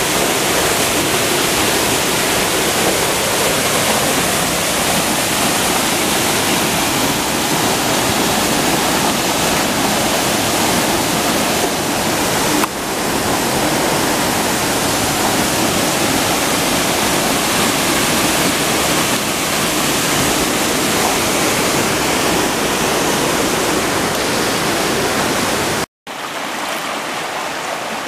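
Cockermouth River water rushing and splashing between boulders in a steady, loud rush. It breaks off for an instant near the end and resumes quieter and thinner, as a shallower stream running over stones.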